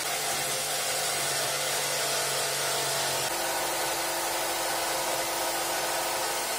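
Electric jigsaw running and sawing through a thick acrylic (plexiglass) sheet, a steady motor whine with the blade rasping. The tone shifts about three seconds in.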